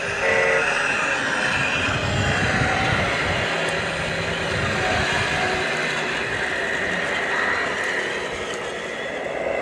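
Radio-controlled model construction machines running: a steady motor noise, with a heavier low rumble in the middle.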